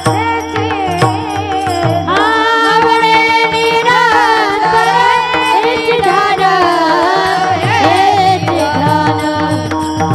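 Women's voices singing a Marathi Varkari devotional bhajan (panchapadi) to hand cymbals (taal) and a two-headed mridang drum. The full chorus comes in together about two seconds in. The drum strokes drop out through the middle and return near the end.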